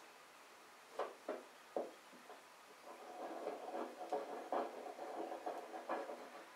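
A pipe clamp being tightened on a glued-up panel of boards. A few sharp clicks as the clamp is handled, then about three seconds of rough, rapid creaking and rattling as its screw handle is turned.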